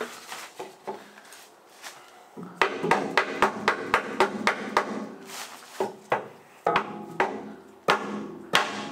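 Club hammer striking a wooden drift held against a cutlass bearing, hammering it into a steel boat's shaft log: a few blows, a short pause, then a quick run of about three blows a second, then slower, spaced blows. The bearing is hanging up on a ridge in the shaft log and will not go in easily.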